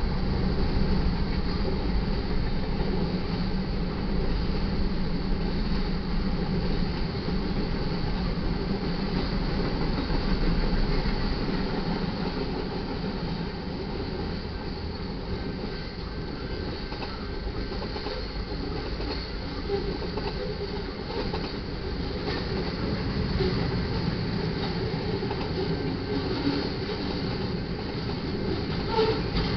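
Freight cars of a manifest train rolling past: covered hoppers, a centerbeam flatcar and steel-coil cars. Their steel wheels run over the rails with a continuous clatter that eases a little about halfway through.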